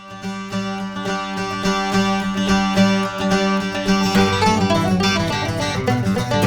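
Background music: a plucked-string tune starting up, growing fuller and busier about four seconds in.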